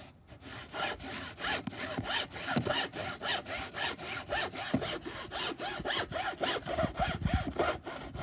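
Hacksaw cutting through a thin plywood sheet in quick, even back-and-forth strokes, about four a second: the last strokes of the cut.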